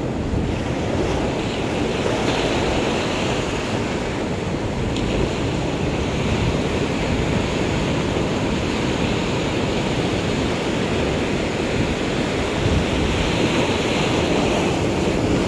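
Ocean surf breaking and washing over the shallows in a steady wash of noise, with wind buffeting the microphone.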